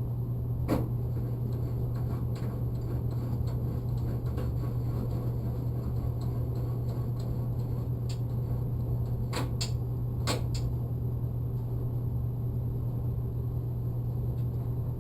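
Chicago Electric 47840 portable variable-speed band saw running with no load, a steady low motor hum. A few sharp clicks or knocks come through it, about a second in and twice near the middle.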